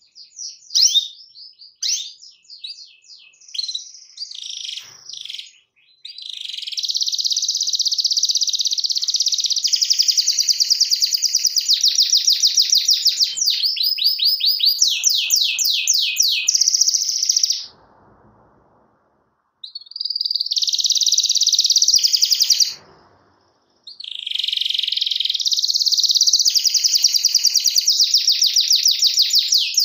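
Domestic canary singing: a few short chirps and whistles, then long, fast rolling trills of rapidly repeated high notes, broken twice by short pauses.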